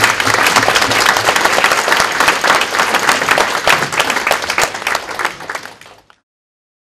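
Audience applauding: many hands clapping at once. It fades and stops about six seconds in.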